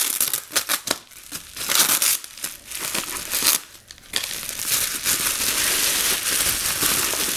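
Bubble wrap crinkling and crackling as it is pulled off a wrapped lightsaber hilt, with blue painter's tape peeled from it at the start. Irregular bursts at first, then dense, continuous crinkling from about four seconds in.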